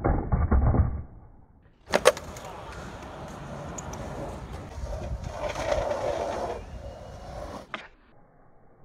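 Skateboard landing and rolling on concrete. A sharp clack of the board comes about two seconds in, followed by several seconds of wheels rolling over concrete and another sharp clack near the end.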